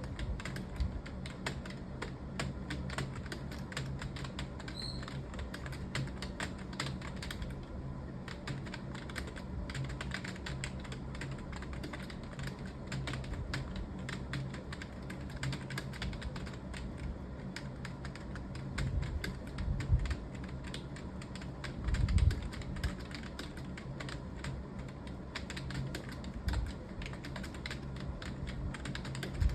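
Fast, continuous typing on a computer keyboard: a steady stream of key clicks over a low hum, with a few heavier low thumps about two-thirds of the way through.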